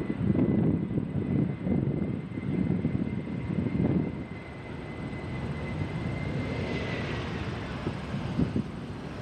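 Delta Airbus A320-family jet airliner on final approach to landing, its engines at approach power giving a steady rumble with a high fan whine. The whine swells and drops in pitch about seven seconds in as the plane passes.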